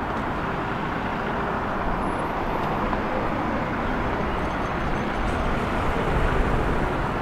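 City street traffic: a steady wash of noise from passing cars and buses.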